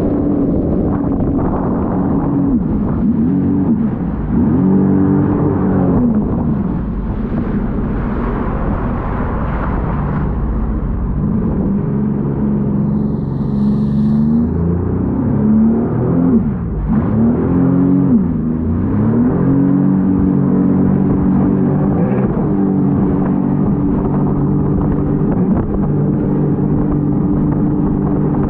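Sea-Doo jet ski engine running under way. Its pitch rises and falls several times as the throttle is worked, then holds steady toward the end, over a rush of wind and water.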